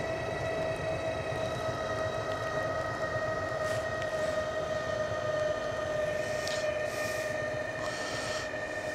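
Motor-driven support legs of a bicycle camping trailer running together, a steady mechanical whine as they extend and jack the loaded trailer up off its wheels.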